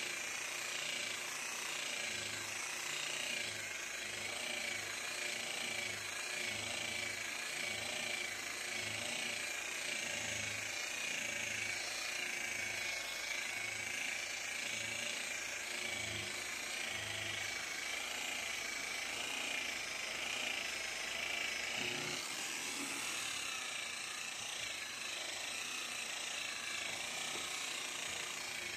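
Corded rotary polisher with a wool buffing pad running steadily against fiberglass gelcoat, a constant high motor whine, buffing compound into oxidized gelcoat. A low pulsing about once a second runs under it through the first half or so.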